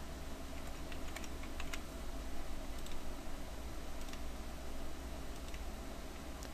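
Computer keyboard typing: a few scattered, irregular keystrokes over a steady low electrical hum.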